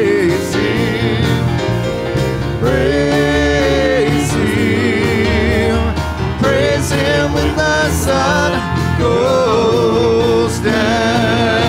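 Live church worship band playing a gospel song, with a singer holding long notes with vibrato over the keyboard, guitar and percussion.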